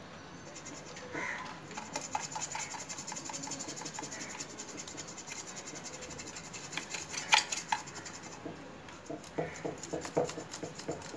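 Quick, rough scraping and rubbing strokes over a catfish's skin as its slimy grey-white coating is cleaned off. The strokes start about two seconds in, come many times a second, and give way to a few scattered knocks near the end.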